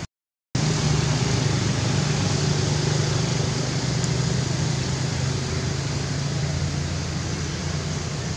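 Steady low hum of a motor vehicle engine running, over an even hiss of background noise; the sound drops out for half a second at the very start.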